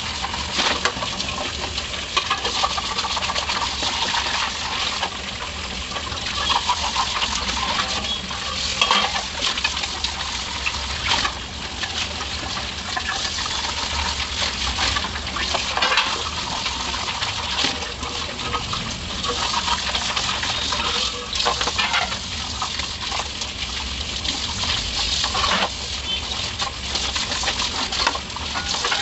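Tap water running onto stainless steel plates as they are rinsed and rubbed by hand, with frequent light clinks of the steel plates knocking together.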